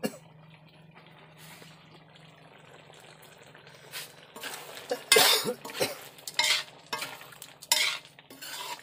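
Metal spoon stirring and scraping mutton curry around a metal wok. A run of scraping strokes, about one to two a second, begins about halfway through.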